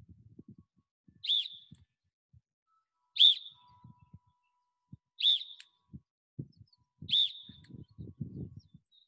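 A coach's sports whistle blown in four short, sharp blasts about two seconds apart. Each blast cues one repetition of a lacrosse stick drill.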